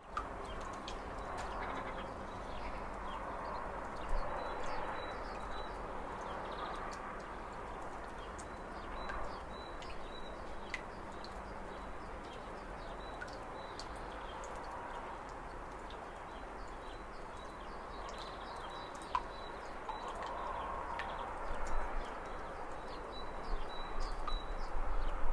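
Birds chirping in short high bursts over a steady outdoor background hiss, with a few sharp small knocks.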